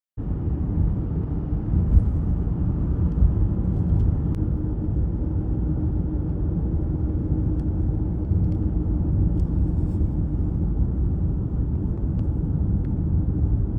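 Steady low road rumble inside a moving car, with a faint steady hum.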